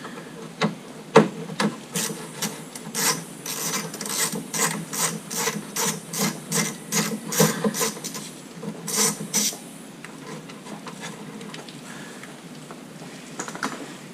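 Hand ratchet with a 10mm socket working a fastener on an underbody plastic cover: a run of sharp ratcheting strokes about two a second that stops about nine and a half seconds in, followed by a few faint clicks near the end.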